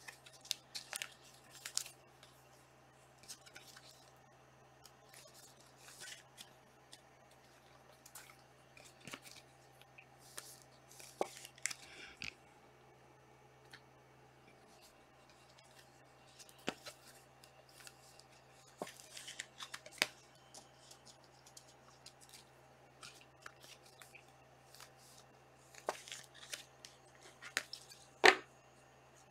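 Trading card packs and cards being handled: scattered short rustles and clicks, with a sharp click near the end.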